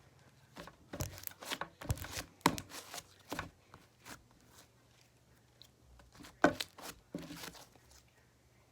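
Slime being kneaded and stretched by hand, giving irregular bursts of sticky clicks and pops, with a quieter stretch in the middle.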